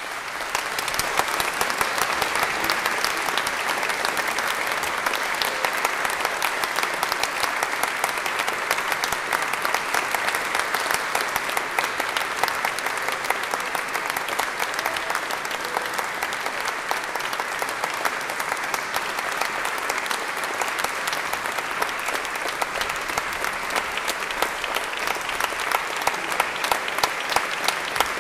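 Concert audience applauding steadily after a performance, a dense patter of many hands clapping in a large hall. Single claps close by stand out more sharply near the end.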